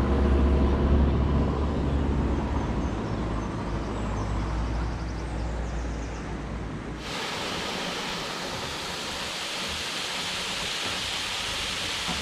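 A steady low rumble for about seven seconds, then a sudden change to the even rushing hiss of a waterfall.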